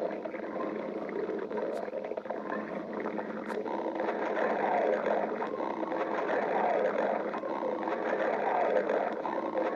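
Human stomach growling: a continuous gurgling rumble that swells about four seconds in, with wavering pitched gurgles sliding up and down.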